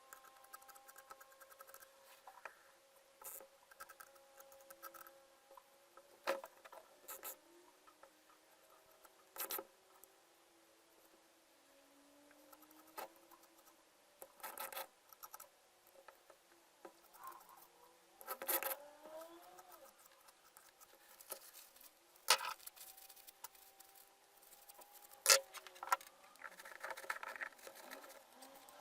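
Scattered light clicks, taps and short scrapes from small parts of an old hammer drill being handled and worked on by hand.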